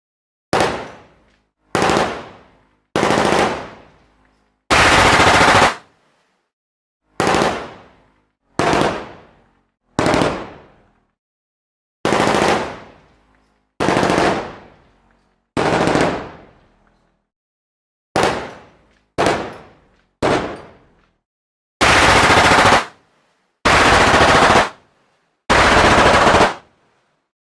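Machine-gun fire in about fifteen short bursts, each followed by a brief silence. Some bursts are cut off sharply, and others die away in a fading tail.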